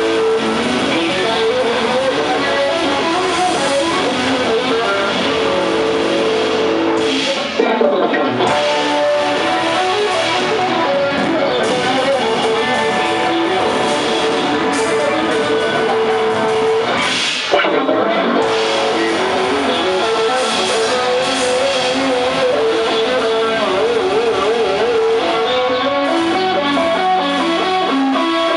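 Live rock band playing an instrumental passage, electric guitars to the fore over keyboard. Twice the band breaks off for a moment and comes back in with a hit, about 7 and 17 seconds in.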